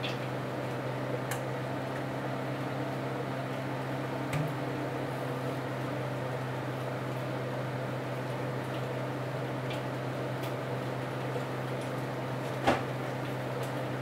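Steady low hum of a running kitchen appliance, with a few light clinks of a utensil against a glass mixing bowl; the sharpest clink comes near the end.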